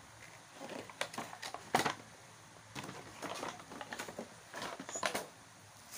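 Plastic wrapping and paper packaging crinkling and rustling as they are handled, in irregular crackles.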